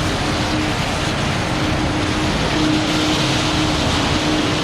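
Terex FD4000 front-discharge concrete mixer truck's diesel engine running wound up to keep the drum turning, a steady hum under a steady rushing hiss of water spray as the chute is washed out.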